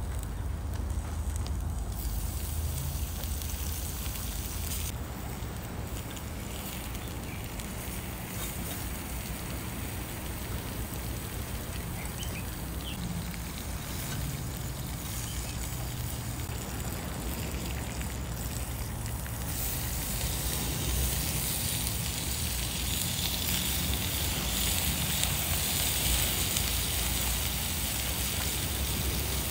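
Wood fire burning in a small portable box stove with a chimney pipe: a steady low rush of the fire drawing. A brighter hiss and crackle comes in about two-thirds of the way through as the fire flares up.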